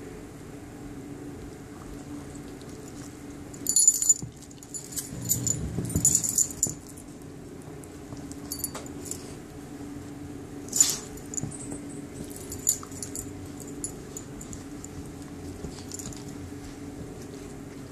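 Dogs play-wrestling, with a metal chain collar jangling in short bursts amid dog play sounds, including a low rumble about five seconds in. A steady low hum runs underneath.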